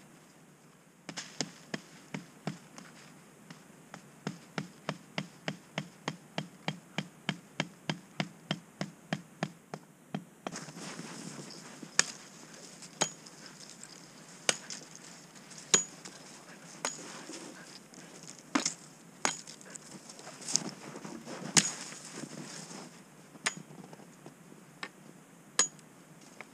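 A hatchet pounding a tarp stake into the snowy ground: a quick, even run of knocks, about three a second, lasting around ten seconds. After that come single sharp strikes of a hatchet chopping a branch, about a second apart with irregular gaps.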